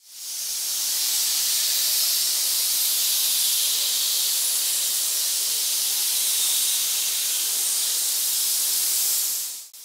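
Steady, even hiss, mostly high-pitched. It fades in over about a second and fades out just before the end.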